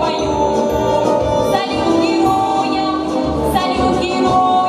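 A teenage girl singing a pop song into a microphone, holding long notes over instrumental accompaniment with a steady bass beat of about two pulses a second.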